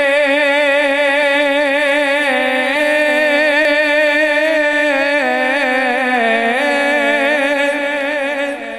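A man singing a long wordless held note in naat recitation, wavering in pitch with ornaments and stepping lower about five to six seconds in, then fading near the end.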